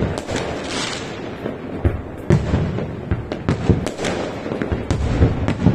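Aerial firework shells bursting in a rapid, irregular series of deep booms and sharper cracks, with a brief hiss about a second in.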